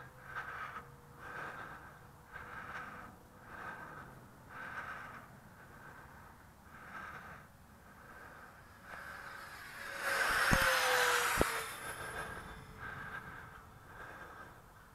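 Steady breathing close to the microphone, a breath about every second. About ten seconds in, the Freewing AL-37's electric ducted-fan jet flies past: its fan whine swells and then drops in pitch as it goes by, with a couple of low thuds.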